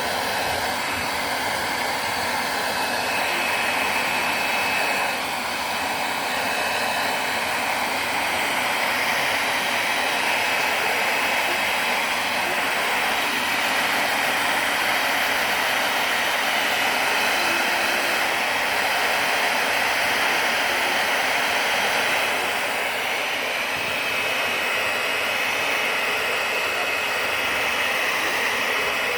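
Handheld hair dryer blowing steadily, with a faint high whine that comes and goes.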